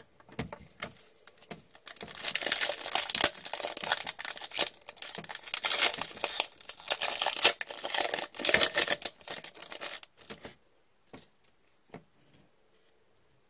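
Foil hockey card pack wrapper crinkling and tearing as it is opened by hand, in a dense crackle lasting about eight seconds. After that come a few soft clicks of cards being handled.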